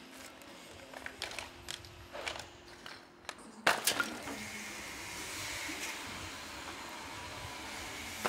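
Chunks of brick rubble knocking and clattering as they are picked up and dropped, a few separate knocks and then one much louder crash a little before halfway. A steady background hiss follows.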